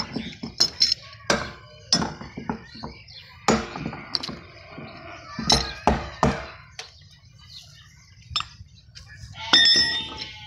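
Irregular knocks and clinks of a metal rod striking a black plastic rooftop water tank and its fittings, with a short ringing clink near the end.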